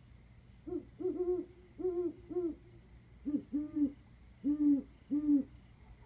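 Owls hooting: a series of four hoots, then after a short pause a series of five slightly lower hoots.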